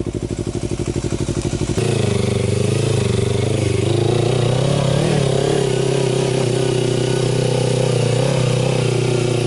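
Kawasaki Versys-X parallel-twin motorcycle engine idling with an even, rapid pulse. About two seconds in it switches abruptly to running under way at higher revs, its pitch rising and falling gently with the throttle, over a steady rush of wind and road noise.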